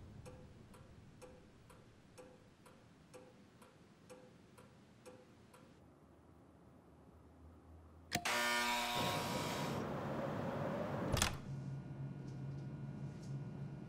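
A clock ticking about once a second, then, about eight seconds in, a loud electric buzz from an apartment door intercom, followed by a sharp click about three seconds later.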